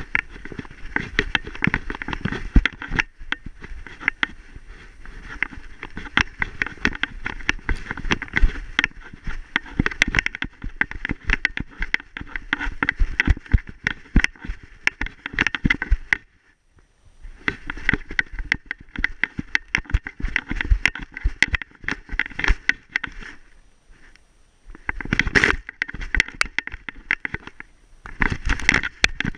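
A dog running through snow, heard from a camera strapped to its harness: a dense, rapid clatter of footfalls, scraping and knocking from the paws and the jostling camera mount. It stops almost completely for about a second in the middle and dips briefly twice near the end.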